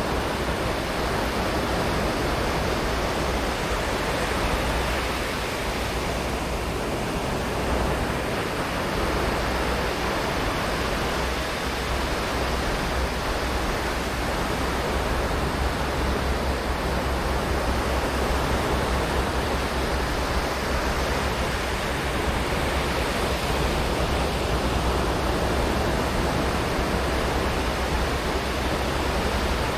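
Ocean surf: waves breaking and washing on the shore in a steady, unbroken wash with slow gentle swells every several seconds.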